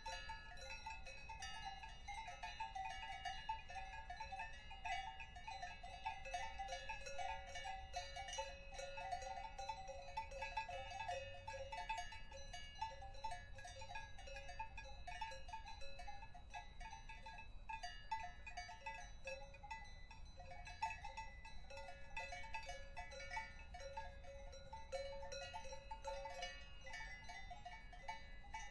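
Many cowbells clanking and tinkling at random, several bells of different pitches overlapping without a steady rhythm.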